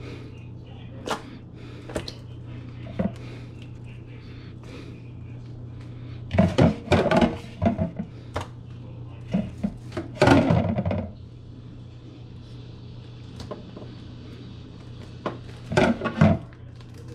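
Kitchen handling sounds of raw fish fillets being wiped with a paper towel and laid in a metal baking pan: scattered light clicks and knocks, with louder bursts of clatter and rustling about six seconds in, about ten seconds in and near the end, over a steady low hum.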